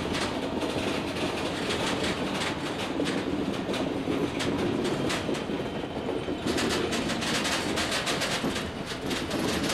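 A new Class 777 train and a wagon being hauled slowly along depot track, their wheels clicking over rail joints and points over a steady rumble. The clicks come thicker in the second half.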